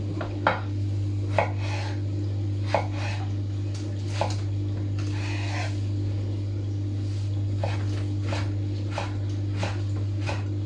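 Chef's knife dicing aubergine on a wooden cutting board: irregular sharp knocks of the blade striking the board, the loudest in the first few seconds. A steady low hum runs underneath.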